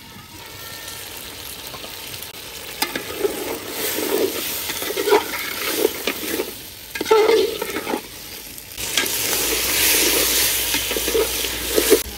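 Long metal spatula stirring and scraping chicken and potato curry around a metal pot, with the spiced meat sizzling as it fries. The stir strokes start about three seconds in, and the sizzling turns louder for the last few seconds.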